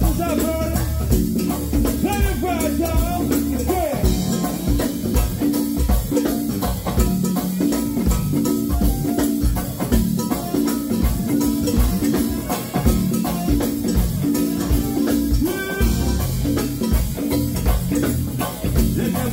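Go-go band playing live: singers over a steady groove of drum kit, congas and percussion, with electric bass underneath. The sung lines stand out most in the first few seconds.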